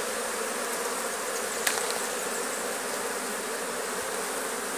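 Honeybee colony buzzing steadily over the opened hive frames, a dense even hum. A single short click about a second and a half in.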